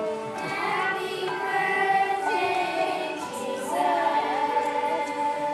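Children's choir singing, the young voices holding long notes.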